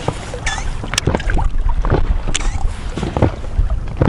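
Small waves lapping and knocking against a PVC inflatable boat over a low wind rumble on the microphone, with two sharp clicks about a second and two and a half seconds in.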